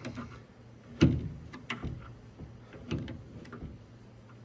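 A dull screwdriver pushing a new rubber window seal into the metal track of a truck door: several sharp knocks and clicks, the loudest about a second in.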